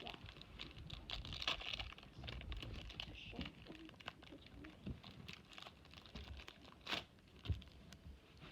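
Foil trading-card pack wrapper crinkling and tearing as it is opened, with cards being handled. Two sharper taps come about seven seconds in.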